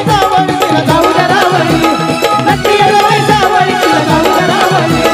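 Instrumental passage of a Marathi folk devotional song: hand drums (dholki) beat a quick, steady rhythm under a held melody line.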